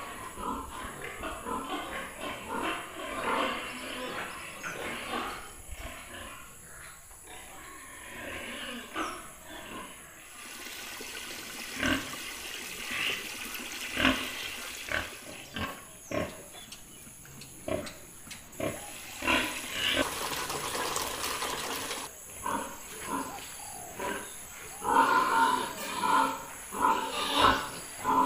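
Pigs calling from their pens, with a run of loud calls near the end. In the middle, for about ten seconds, water from a hose runs steadily into a plastic barrel with a constant hiss.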